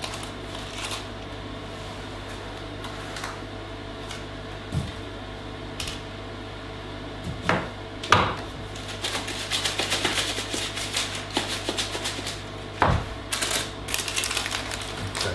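A metal baking tray of freshly poured fudge, lined with baking paper, being handled on a steel worktop: a few separate knocks and scrapes, then a rapid rattling for the last several seconds as the tray is shaken to level the fudge. A steady low hum underneath.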